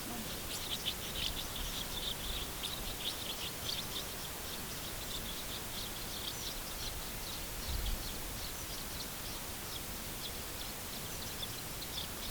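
House martins twittering: a quick run of short chirps for the first few seconds, then scattered chirps, over a steady background hiss.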